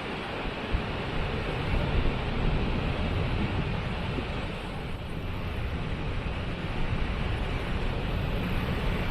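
A waterfall's steady rushing, with a heavy low rumble that swells and fades.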